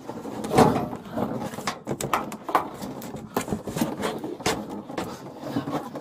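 Irregular knocks, clicks and rustling as a handcuffed man shifts about and works his cuffed hands on the hard rear seat of a patrol car, heard inside the closed back cabin.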